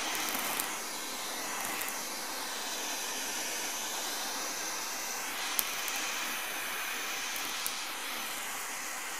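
Handheld blowtorch flame hissing steadily as it heats a copper pipe joint for soldering, with two short sharp ticks in the second half.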